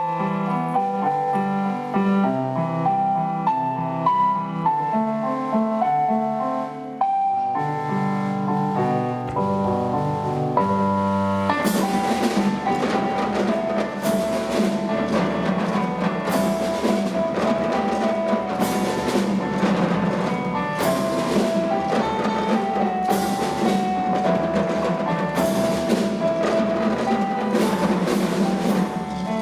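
Recorded pop backing music: a piano-led passage of held notes, then about twelve seconds in a drum kit beat and a full band arrangement come in.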